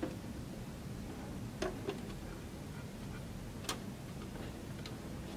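A few light clicks and taps of a metal hanger tube being worked into the plastic seat-mount hub of a Graco Simple Sway baby swing. The sharpest click comes a little under four seconds in, the sound of the push-button catching to lock the tube in place.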